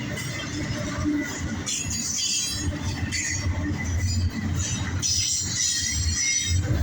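Freight train cars rolling past with a steady low rumble and clatter, the steel wheels squealing thinly against the rails.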